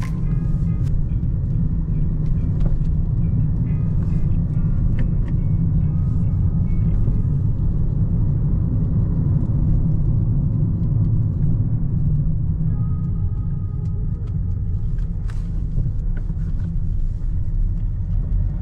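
Inside the cabin of a 2013 Kia Ceed with the 1.4-litre, 99 hp petrol engine and manual gearbox, on the move: a steady low rumble of engine and road noise.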